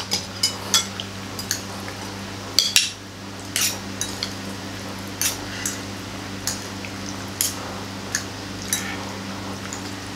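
Metal fork and spoon clinking and scraping against a plate while tossing instant noodles, in irregular taps with a louder pair of clinks about a third of the way in.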